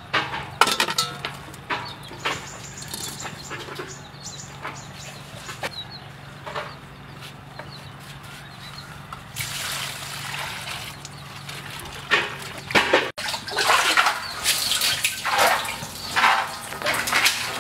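Water splashing and sloshing as a plastic bucket on a rope is worked in a hand-dug well, lowered and hauled up full, with scattered knocks early on and a run of loud splashes in the last few seconds.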